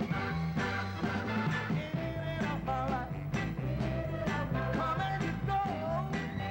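A 1960s soul record playing, with a lead vocal line over bass, drums and band at a steady beat.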